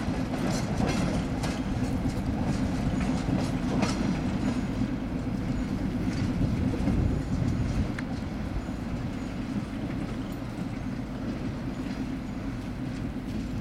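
TGM4 diesel-hydraulic shunting locomotive running with a train of boxcars, its engine a steady low drone. Wheels click over the rails in the first few seconds.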